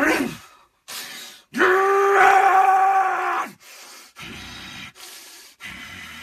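A man's wordless yell of excitement: a short cry just under a second in, then a long yell held on one pitch for about two seconds, followed by fainter, rough broken sounds.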